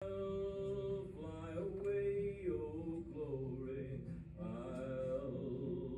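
Recorded music: a slow song with a voice singing long, held notes over a quiet instrumental accompaniment.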